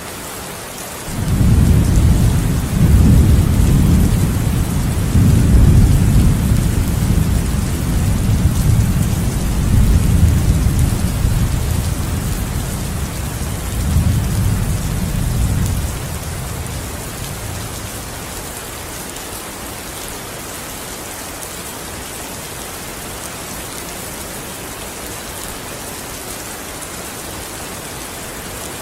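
Steady rain hiss with thunder: a long, low rolling rumble comes in about a second in, swells several times, and dies away around the middle, leaving the rain alone.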